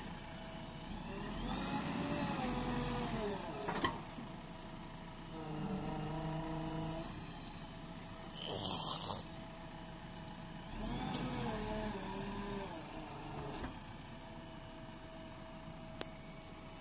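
JCB 3DX backhoe loader's diesel engine running, its pitch dipping and rising twice as it works. There is a short loud hiss about halfway through and a few sharp knocks.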